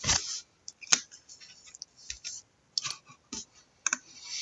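Trading cards being handled: a string of light clicks and short scrapes, then a longer sliding rustle near the end.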